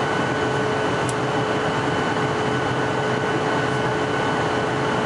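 Steady airliner cabin noise during the descent: engine and airflow rush, with a few faint steady whining tones over it.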